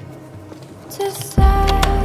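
Background music: a quieter stretch, then a deep bass note and a held tone come in about one and a half seconds in.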